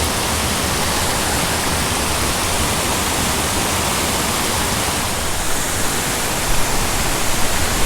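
Steady rush of water pouring over an artificial waterfall at a small dam into the pool below.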